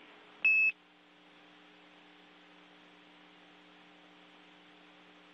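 A single short radio beep tone about half a second in, the kind of tone that marks the end of a Mission Control air-to-ground transmission. After it comes the faint steady hum and hiss of the open radio channel.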